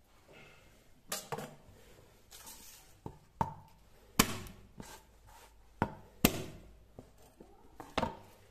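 A kitchen knife knocking on a chopping board, about six sharp, irregular knocks, as garlic cloves are crushed under the blade.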